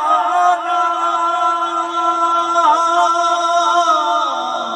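A man singing a long held note of a manqabat without instruments, his pitch wavering in ornaments over a steady lower tone, then sliding down near the end.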